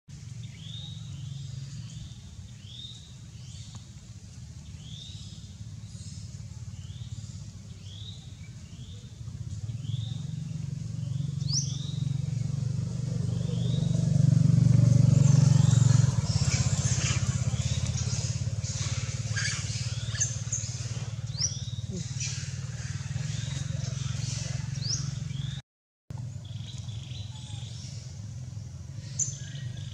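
Outdoor ambience: small birds chirping in short rising calls, about one a second at first and then more densely, over a steady low hum that swells to its loudest about halfway through. The sound cuts out for a moment near the end.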